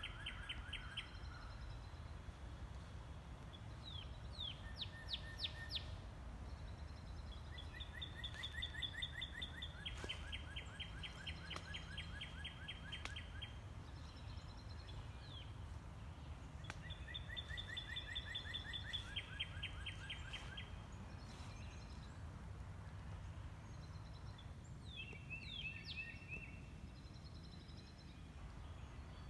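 Songbirds singing in a series of phrases of rapid repeated notes, each a second or few long with pauses between, over a steady low rumble of outdoor background noise.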